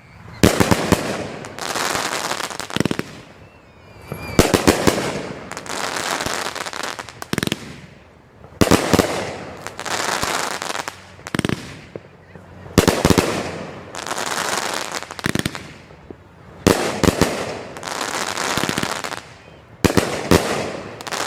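A 500-gram fireworks cake (Glorious Cannonade) firing. About every four seconds a cluster of sharp launch thumps is followed by two to three seconds of dense noise from the bursting shells, six volleys in all.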